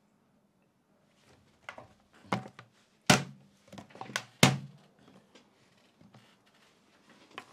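A plastic water bottle grabbed and banged about: a string of sharp thunks and crackles starting about a second and a half in, the loudest about three and four and a half seconds in.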